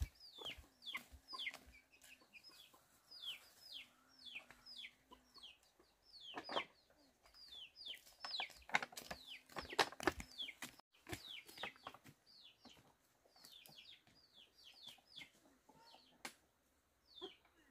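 Chicks peeping over and over, each call a short, quickly falling high note, with a few knocks and rustles of handling in between.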